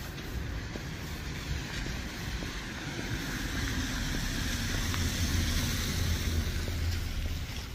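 A car passing on a wet street: tyre hiss and engine hum swell over several seconds, then fade near the end.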